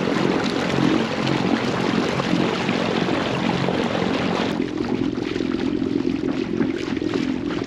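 Water rushing and splashing from the prop wash and along the hull of an inflatable kayak driven by a Watersnake Venom 34 electric trolling motor, over a low steady rumble. About four and a half seconds in, the hissing spray drops away and the low rushing goes on steadier.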